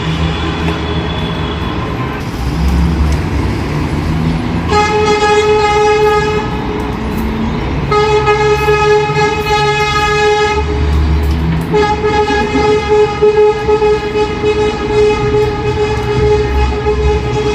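A loud horn gives three long single-note blasts of two to three seconds each, about five, eight and twelve seconds in, over a steady low rumble of heavy traffic.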